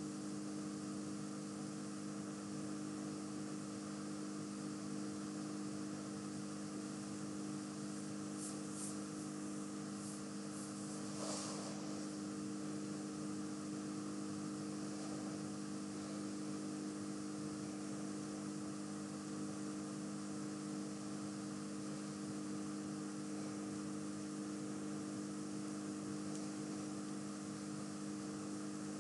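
Steady electrical hum with several fixed tones over a constant hiss, from the recording's background noise. A few faint clicks come near the middle.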